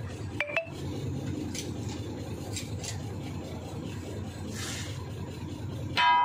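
Faint metallic clinks and taps of hand tools at a truck's wheel hub, over a steady low vehicle engine rumble. A voice starts at the very end.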